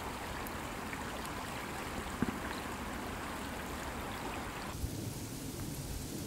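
Shallow stream water rippling and trickling over a submerged log, a steady watery hiss that softens about three-quarters of the way through.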